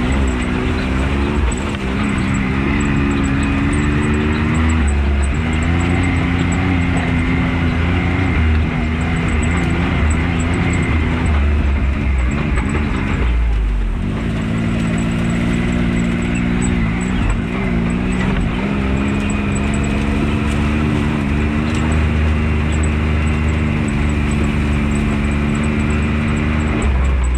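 Can-Am Maverick X3 side-by-side's engine running while the vehicle drives, its pitch rising and falling with the throttle, with a brief drop about halfway through.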